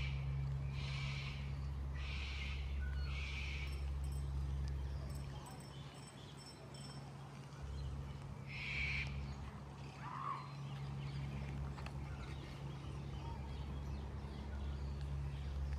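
Aviary bird giving harsh, squawking calls: four about a second apart at the start and one more near the middle, over a steady low rumble.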